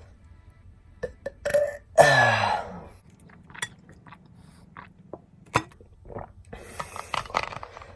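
A single loud human burp about two seconds in, lasting just under a second and falling in pitch, with a few small clicks around it.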